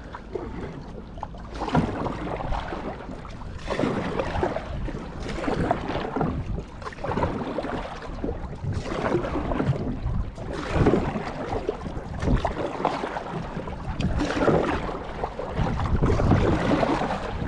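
Sea water rushing and splashing around the float and spar of a small outrigger boat, swelling every two or three seconds, with wind buffeting the microphone.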